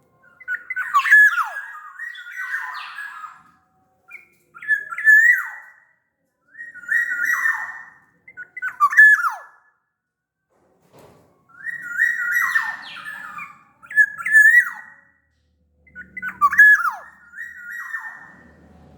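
Black-naped oriole (kepodang) singing loud, fluty whistled phrases, about six of them with short pauses between. Each phrase has clear notes and quick downward slurs, some with a harsher edge.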